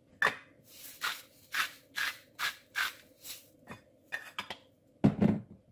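Salt grinder being twisted over a pot, a steady run of short rasping grinds about two a second for over three seconds. A louder low knock comes near the end.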